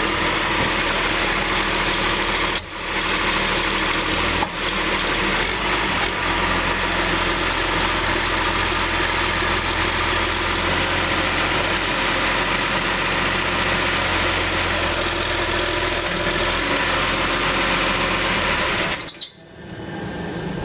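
John Deere 710D backhoe's diesel engine running steadily. About 19 seconds in the sound drops away sharply, then resumes quieter.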